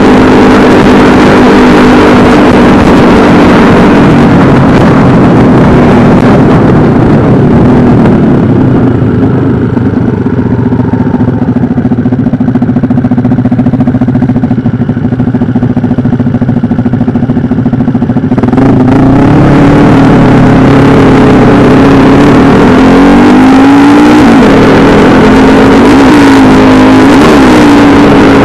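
Small single-cylinder mini-bike engine running at cruising speed with wind rushing over the microphone, dropping to a quieter idle for about ten seconds in the middle, then pulling away and revving up through the gears near the end, the pitch rising and falling with each shift.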